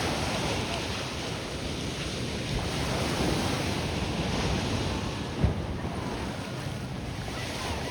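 Ocean surf washing and breaking on the shore, a steady rushing hiss, with wind buffeting the microphone. A single short thump about five and a half seconds in.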